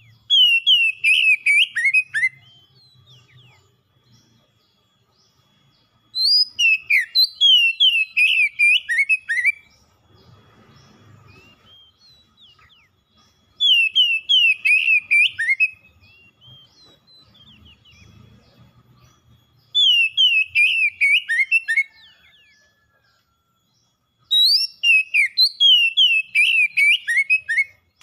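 Oriental magpie-robin singing in full song: five loud phrases a few seconds apart, each a quick run of clear whistled notes that slide downward.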